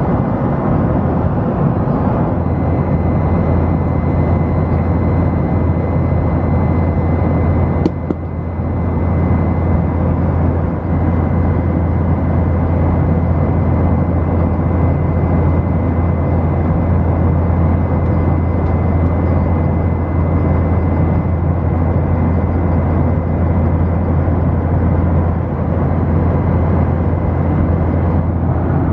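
Steady cabin drone of a Boeing 737-900ER airliner in flight: a constant rush of airflow with a deep engine hum and a faint thin whine.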